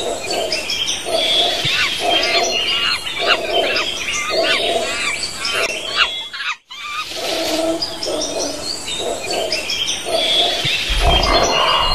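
Jungle ambience: many birds chirping and whistling over a lower call that repeats about once a second. It breaks off suddenly for a moment a little past halfway and starts again, and a low rumble comes in near the end.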